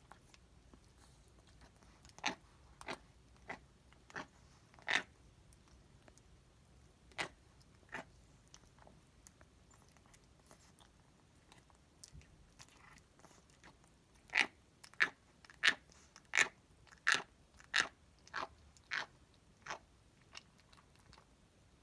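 Elderly cat chewing food with sharp grinding crunches: a few scattered ones, then a steady run of about ten, roughly one every two-thirds of a second, in the second half. This grinding while eating comes with her struggling to eat.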